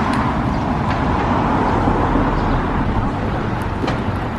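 Road traffic on a city street: a steady rush of tyre and engine noise from vehicles driving past.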